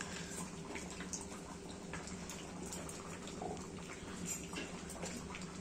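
Chicken curry simmering in a wide aluminium pot, faint scattered bubbling pops and ticks over a steady low hum.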